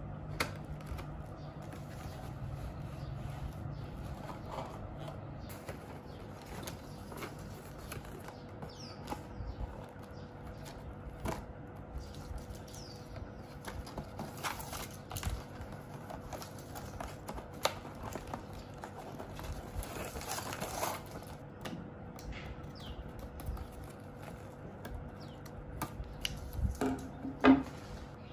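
Hands folding a paper cake box shut and tying ribbon around it: scattered rustles, taps and clicks of paper and card, with a louder knock near the end.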